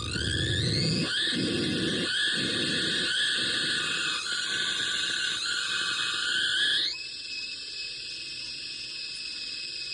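The Dream Catcher sound machine giving off high squealing tones. They glide upward at the start and again just before seven seconds in, then switch abruptly to a quieter, steadier layer, over a low rough noise that pulses three times in the first three seconds.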